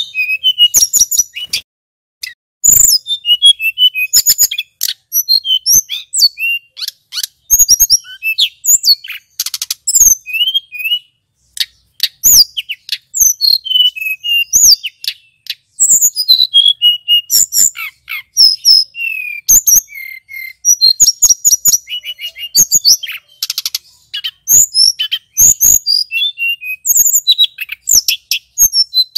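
Male hill blue flycatcher (tledekan gunung) singing loudly and at length: a fast, varied string of short whistled notes and trills with rapid ticking runs, broken only by brief pauses.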